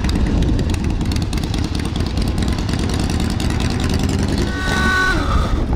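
A motorcycle engine running, low-pitched and loud, with a short held higher tone over it about five seconds in.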